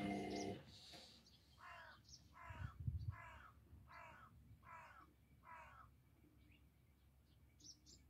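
The Indesit EcoTime washing machine's motor hum stops about half a second in as the drum pauses during the final rinse. A bird then calls six times in an even series, with a couple of low thuds about three seconds in.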